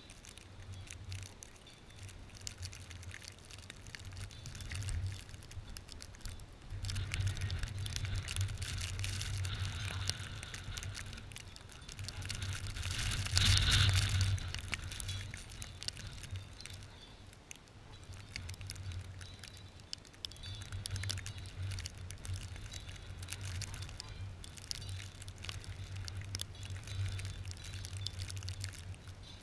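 Gusty wind buffeting the microphone in a snowstorm, with fine crackling and ticking throughout; it is strongest in a gust about halfway through.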